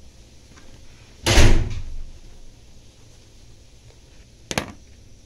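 A loud knock about a second in, dying away within about half a second, then a short sharp click near the end.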